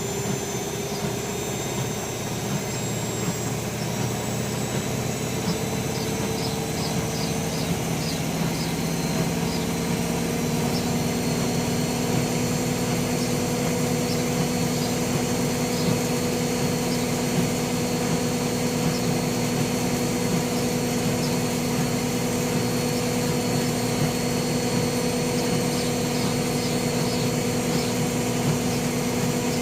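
Bauknecht WA 1460 Sports washing machine spinning its drum: the motor's whine rises in pitch over about the first ten seconds, then holds steady at speed.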